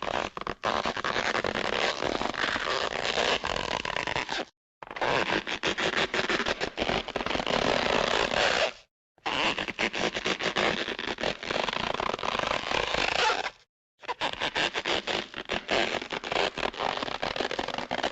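Cartoon stretch-and-pull sound effects: rubbery, creaking stretching noises. Four of them play one after another, each about four seconds long, with brief silences between.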